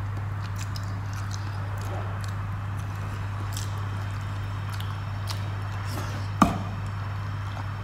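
Eating rice and fish curry by hand: soft squishing and small clicks of fingers working the rice and curry on a plate, then one sharper smack about six seconds in as the mouthful is eaten.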